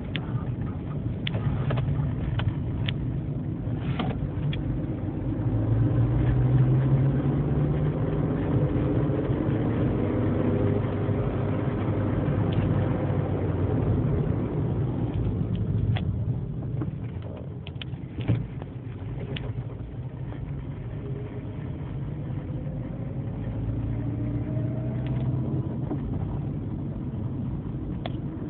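Fiat Palio ELX 1.4 on the move, its engine note climbing and easing off with speed. Scattered short clicks and knocks are heard, one sharper about 18 seconds in. The car has an unexplained noise at the front passenger-side wheel that several mechanics could not identify.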